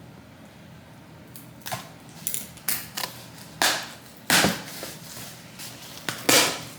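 A product box being unboxed: after a quiet start, a string of about seven sharp rips, rustles and knocks at uneven intervals as the box and its packaging are pulled open.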